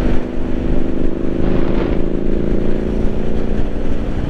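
A 2017 Triumph Street Scrambler 900's parallel-twin engine running at a steady cruise, with a low rumble of wind on the microphone.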